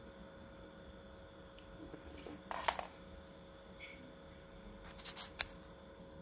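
Thin copper wire coil being handled and fitted against a ceramic mug: a few brief scrapes and clicks, about two and a half seconds in and again around five seconds in, over a faint steady hum.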